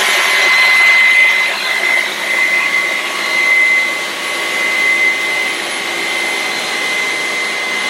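Dyson V11 Torque cordless stick vacuum running steadily with a high whine over a rushing hiss as it sucks up spilled flour.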